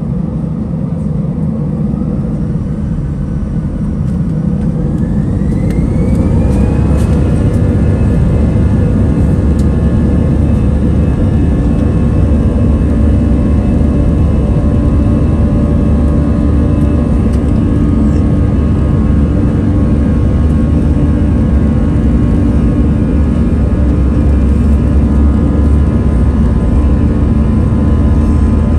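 Airbus A319's CFM56 turbofan engines heard from inside the cabin, spooling up to takeoff thrust. A whine rises in pitch and grows louder over the first several seconds, then settles into steady tones over a loud rumble as the aircraft rolls down the runway.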